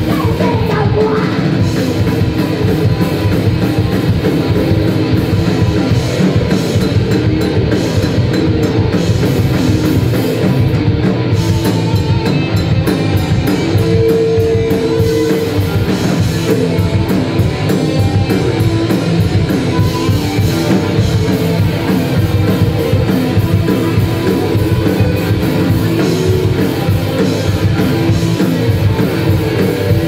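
Live heavy rock band playing loud: electric guitar, bass guitar and drum kit together, with sung vocals in places and one long held note about halfway through.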